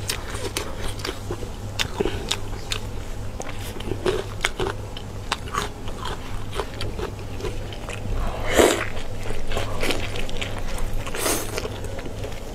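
Close-miked eating of braised meat: wet chewing, lip smacks and small clicks from the mouth, with two louder squelches about eight and a half and eleven seconds in. A steady low hum runs underneath.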